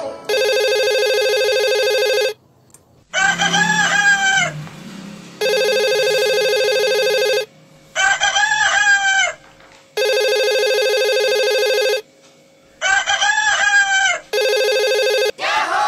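Mobile phone ringing with a comic ringtone: a steady electronic ring of about two seconds alternates with a rooster crowing, three crows in all. A falling, sliding sound starts near the end.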